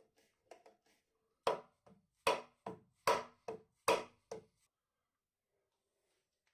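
Hammer blows on the end of a long steel drift bar driving a part out of an old cast-iron dividing head: a few light taps, then about eight sharp strikes at about two a second, alternating harder and softer, stopping about four and a half seconds in.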